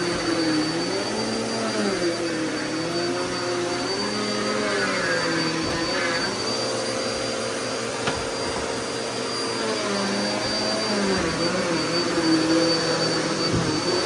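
Vacuum cleaner running over carpet, a steady noise with a high thin whine. Its motor hum rises and falls in pitch every second or two.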